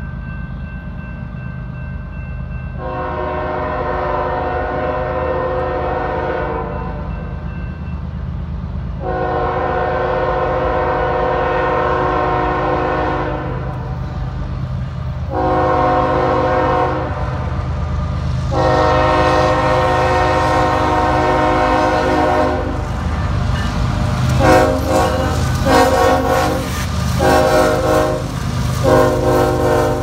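Lehigh Valley heritage diesel locomotive 8104 (a Norfolk Southern ES44AC) blowing its multi-chime air horn as it approaches a grade crossing, over the low rumble of the engine and train. The horn gives two long blasts, a short one and another long one, the standard grade-crossing signal. It ends with a quick run of short toots as a horn show.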